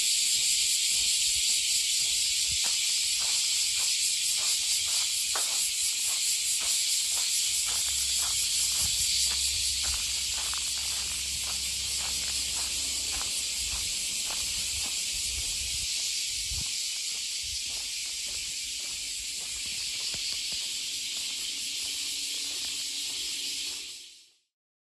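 A dense, steady chorus of cicadas buzzing high and hissing, with faint footsteps underneath; it fades out just before the end.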